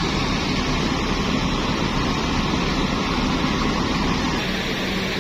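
Intercity coach buses idling close by: a steady diesel engine and air-conditioning drone. A low steady hum joins near the end.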